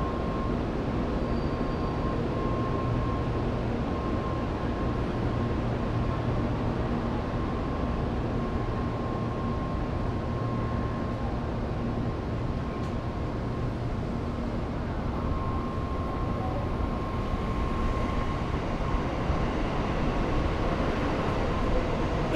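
Shinkansen bullet train running into the station platform: a steady rumble with a faint, even whine over it.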